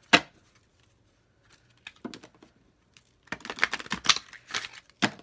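A deck of oracle cards being shuffled by hand: a sharp snap of the cards right at the start, a few light taps, then a quick run of rapid clicks as the cards are shuffled, from about three seconds in.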